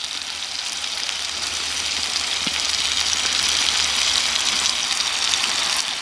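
Trout frying in a cast-iron pan over a campfire: a steady, dense sizzling hiss with fine crackles of hot fat.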